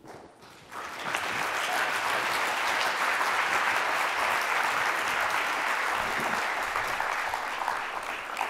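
Audience applauding, beginning about a second in and dying down near the end.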